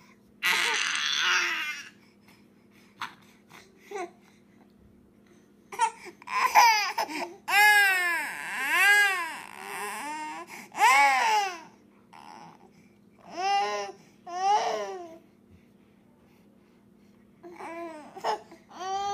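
Baby girl crying in loud wails, each cry rising and falling in pitch, over a pacifier her twin has taken; a short raspy outburst comes about half a second in, and shorter fussing cries follow near the end. A steady low hum runs underneath.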